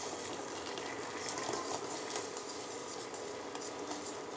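Jaggery syrup boiling in a steel pot, a steady bubbling hiss as a spoon stirs it. The syrup is being cooked down toward half-string consistency.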